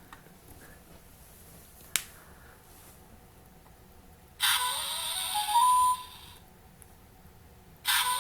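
Electronic sound effects from a Thomas the Tank Engine sound book's small speaker, played twice: each a burst of steam-like hiss with a train-whistle tone that climbs and then holds, lasting about a second and a half. A single click, like a button press, comes about two seconds in.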